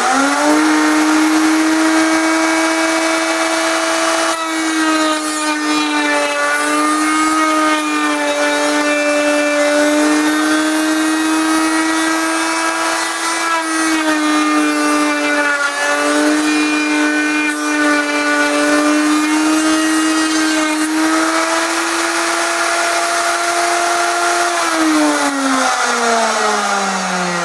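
Table-mounted electric router running at speed with a shop vacuum pulling dust from it, a steady high whine whose pitch dips slightly at times as the bit cuts a groove in the wood. Near the end it is switched off and winds down, its pitch falling.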